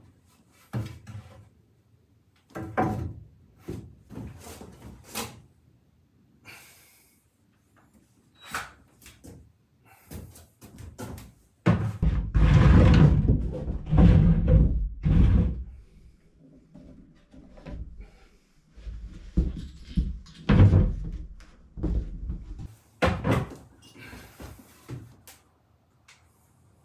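Wooden knocks, clunks and thuds as lumber is handled and fitted against a wooden doorway frame. There is a louder, busier stretch of knocking about midway and again a few seconds later.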